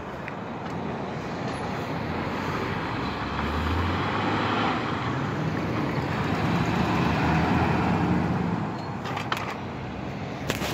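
Road traffic passing close by: a car and a pickup truck driving past, with engine and tyre noise swelling to a peak about eight seconds in, then fading as they drive away.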